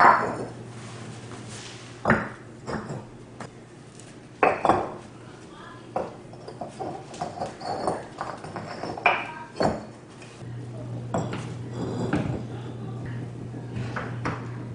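Concrete landscape stones knocked and scraped against one another as they are set in place, giving several sharp clacks with gritty scraping between them.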